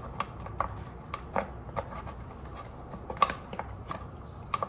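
Irregular light clicks and taps of a flexible motorcycle cover being handled and pressed into place by hand, its tabs going into their holes; the sharpest click comes about three seconds in.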